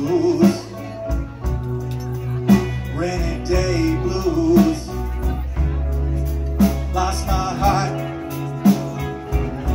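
Live blues band playing a slow blues, with a drum hit about every two seconds over guitars and keyboard, and a wavering melody line over the top.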